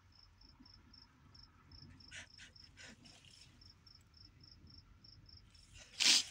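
Crickets chirping in a steady high pulse, about four chirps a second, with a person's faint sniffles partway through and a loud sniff near the end while crying.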